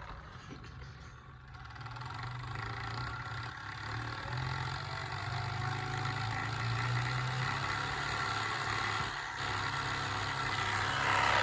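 Dyson V6 cordless vacuum's motor running steadily, a hum with a steady whine that grows gradually louder, with a brief dip about nine seconds in. The vacuum is running again after its broken wires were replaced.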